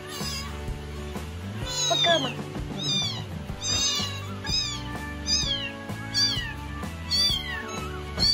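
A very young kitten mewing over and over as it is syringe-fed milk: thin, high cries that fall in pitch, one or two a second. Background music plays underneath.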